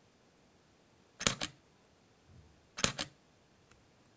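Canon EOS RP mirrorless camera's mechanical shutter firing in single-shot mode: two separate exposures about a second and a half apart, each a quick cluster of two or three clicks.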